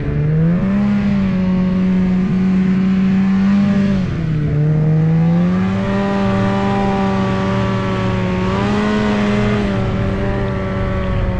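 Snowmobile engine running under way, heard close up from the machine itself. Its pitch drops and climbs back at the start and again about four seconds in as the throttle eases off and comes back on, and holds steady in between.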